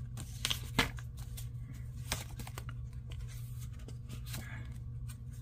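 Sticker-book pages being flipped and handled: light paper rustles and scattered taps, over a steady low hum.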